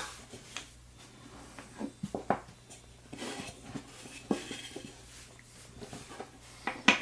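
Scattered small clicks and taps of a padlock's pulled core and its metal parts being handled on a work surface, with a sharper click near the end.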